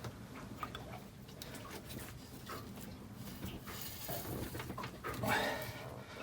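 Irregular small clicks, squeaks and rubbing as a rubber hose is handled and worked onto a fitting by hand.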